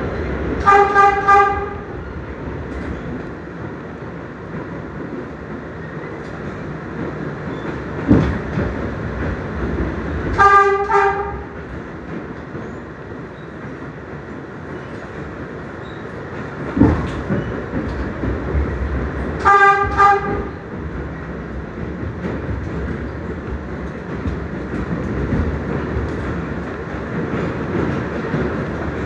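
New York City Transit R62A subway train running, heard from inside the car: a steady rumble and rail noise, with the train's horn sounding a short double toot three times about nine seconds apart. A couple of sharp clunks from the wheels crossing rail joints come in between.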